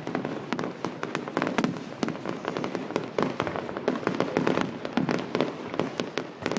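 Fireworks display: a dense, irregular run of bangs and crackling reports, several a second.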